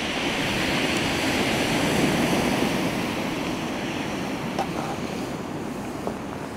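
Surf breaking on a pebble beach: a wave swells to a peak about two seconds in and washes away, with wind buffeting the microphone. A few faint clicks of gear being handled near the end.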